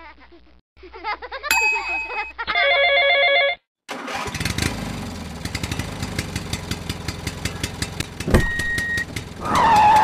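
Tractor engine sound effect starting up about four seconds in and running with a rapid chugging, with one sharp knock near the end. Before it, a few short high voices and a steady electronic ringing tone lasting about a second.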